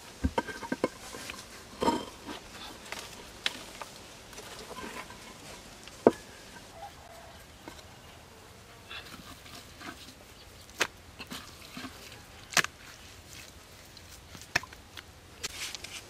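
Scattered knocks and scrapes of stone on stone as flat stones are handled and set, with the sharpest knock about six seconds in.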